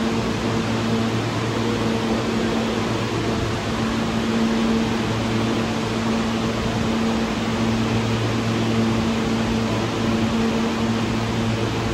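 Subway station platform noise: a steady rush with a low electrical hum running under it, and no wheel clatter or squeal.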